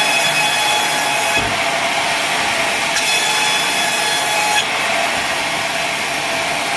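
Sawmill saw blade running steadily and cutting through wadang timber, with a hissing cutting noise rising twice: at the start until about a second and a half in, and again from about three seconds in for a second and a half, between which the saw runs on without that bite.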